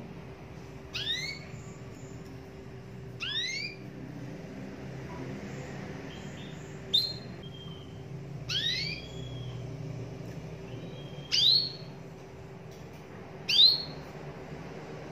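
Caged domestic canary giving short, sharp rising chirps, six of them spaced about two seconds apart, over a faint steady hum.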